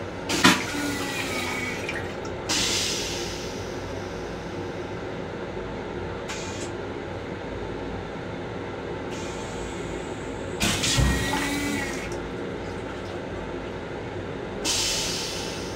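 An LIRR M7 railcar toilet flushing, heard as a run of short hissing rushes of water. The loudest rush, with a deep whoosh, comes about eleven seconds in. The railcar's steady rumble runs underneath.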